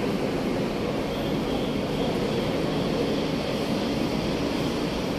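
Steady low rumble and hiss of busy city surroundings, with no single sound standing out.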